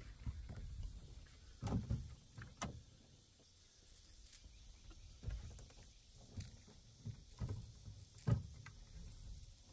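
Irregular knocks and thumps in a fishing boat as the landing net holding the catch is swung aboard and handled, the loudest thump near the end.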